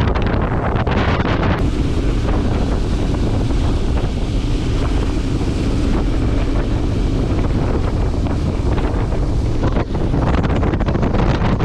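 Wind buffeting the microphone on a moving boat: a loud, steady rumble and hiss. The sound changes abruptly about one and a half seconds in and again near the end.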